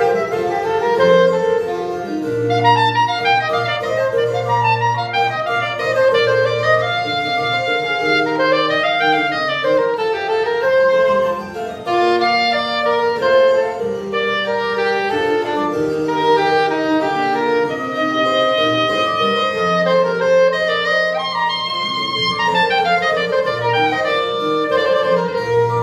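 Soprano saxophone playing quick rising and falling runs over an accompaniment of low, held bass notes.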